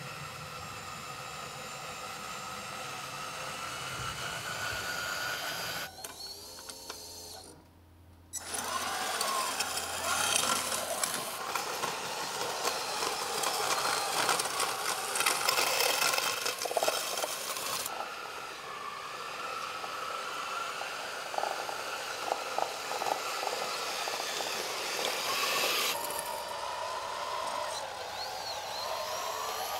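Small electric drive motors and gearing of a 1/16-scale RC John Deere 9620RX tracked tractor whining and rattling as it runs, the whine rising and falling in pitch as the model works.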